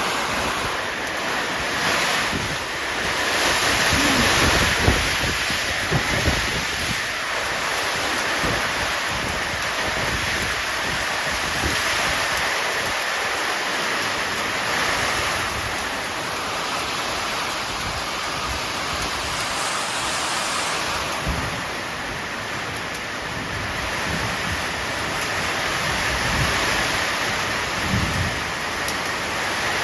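Strong wind blowing hard and steadily, rising and easing in gusts, with low rumbling buffets of wind on the microphone a few seconds in and again near the end.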